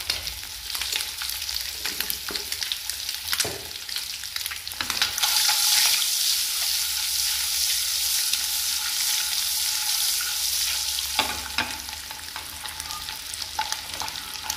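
Whole hard-boiled eggs frying in hot oil with turmeric and chilli powder in a nonstick pan, sizzling steadily. A few short clicks come as they are stirred and turned. The sizzle grows louder about five seconds in and eases again after about eleven seconds.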